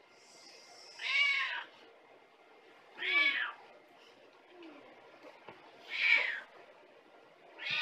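Calico cat meowing four times, about every two and a half seconds, the last call starting near the end. These are attention-seeking meows from a cat that wants to be fussed over.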